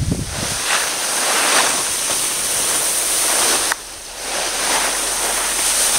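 Skis hissing and scraping over spring snow, swelling with each turn, with a brief lull about four seconds in.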